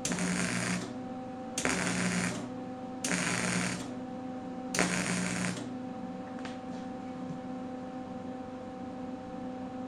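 Wire-feed welder laying four short stitch welds on a steel fuel tank: four bursts of crackling arc, each under a second and about a second and a half apart. After the last one, only a steady electrical hum remains.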